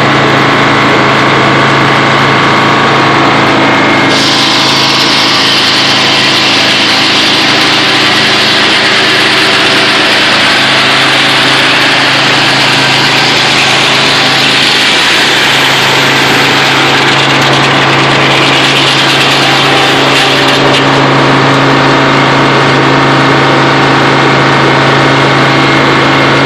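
Circular sawmill driven by a GM Detroit Diesel engine, the engine running steadily. From about four seconds in until about twenty-one seconds the blade cuts through an oak log, adding a loud high rushing sound over the engine.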